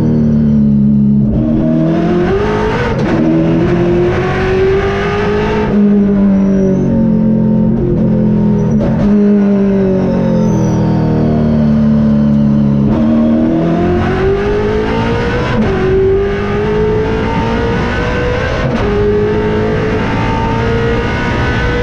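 Holden Torana touring car's V8 engine at racing speed, heard from inside the cockpit. It rises in pitch through the gears with sudden drops at each upshift. In the middle it holds a lower, slowly falling note for several seconds before pulling hard again.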